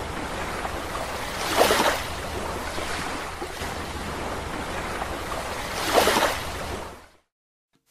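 Ocean surf: a steady rush of breaking waves, with two louder swells about two seconds in and about six seconds in, fading out about seven seconds in.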